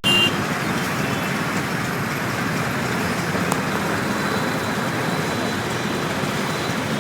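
Steady road traffic noise heard from a moving vehicle: engine and tyre rumble in busy Indian traffic.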